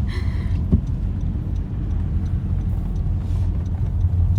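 Road and engine noise heard inside a car's cabin while driving in a rainstorm: a steady low rumble, with scattered light ticks and a short hiss right at the start.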